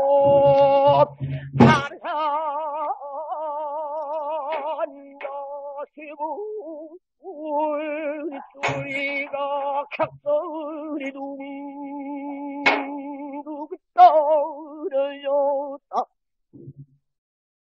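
Male pansori singer singing long held notes with a wide, wavering vibrato, marked by a few sharp buk drum strokes. The phrase ends and the sound stops about sixteen seconds in.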